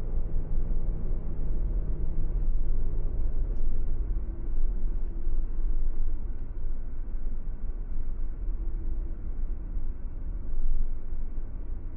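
A car driving on the road: a steady low rumble of engine and tyre noise, with a faint engine hum that fades about three seconds in.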